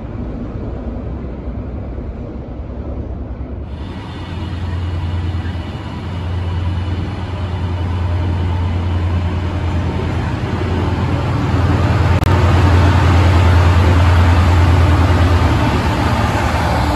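Class 68 diesel-electric locomotive engine running with a steady low drone as the locomotive and its engineering train move through the station. After a cut about four seconds in, the drone and the rumble of the train grow louder and peak as the locomotive passes close by.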